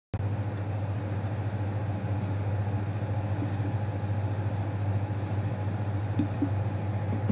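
Steady low mechanical hum with a rushing noise above it, from running kitchen equipment, starting abruptly just after the start.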